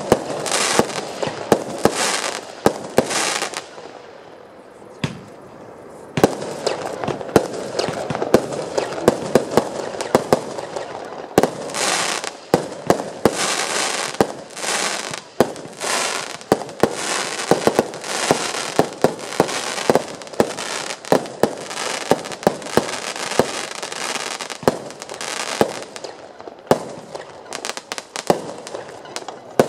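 Comet 'Tiger Fire' 52-shot firework battery firing: a rapid run of sharp shots with crackling between them. A short lull comes about four seconds in, then the shots follow almost without a break.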